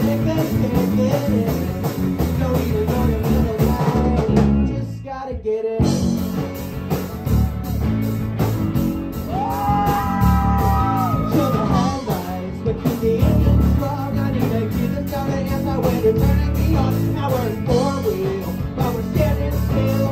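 Live rock band playing: drums, bass, electric guitar and singing. About four and a half seconds in the band drops out almost completely for about a second, then comes back in, with a long held note a few seconds later.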